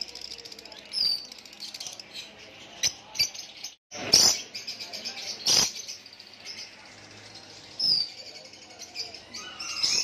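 Caged birds chirping, with many short high chirps and quick falling calls. Two loud harsh bursts come about four seconds in and again around five and a half seconds in.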